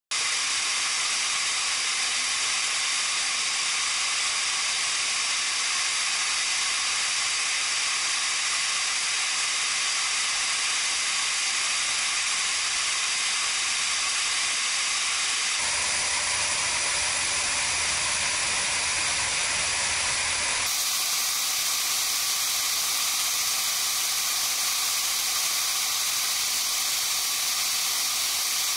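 Steady hiss of a Hwacheon Hi-TECH 230AL YMC CNC turning center cutting titanium under flood coolant, during internal roughing and then grooving. The hiss changes character abruptly twice.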